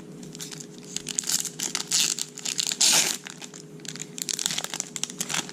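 Crinkling and tearing of a foil trading-card pack wrapper being handled and pulled open, in dense crackling bursts that are loudest in the middle.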